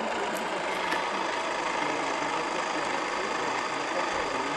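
Steady, loud roar of a gas burner firing a model steam boat's boiler as it heats up.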